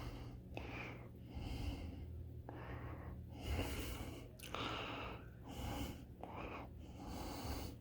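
Shinic 10-inch box fan switched off and coasting down, its blades spinning to a stop, with a steady low hum underneath. Soft breathy rushes of air come close to the microphone about once a second.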